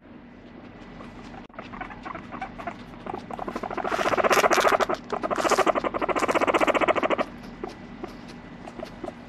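Abyssinian guinea pig giving two loud, buzzing pulsed purrs of about two seconds each while its head is being stroked, after a few seconds of small clicks and shuffling.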